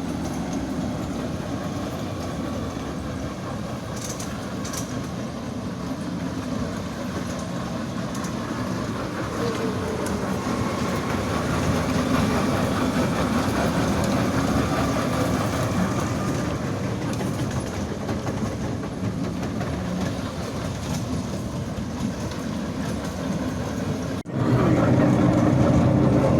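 Children's train running along its track, heard from aboard: a steady rumble of wheels and carriage. It jumps abruptly to a louder level near the end.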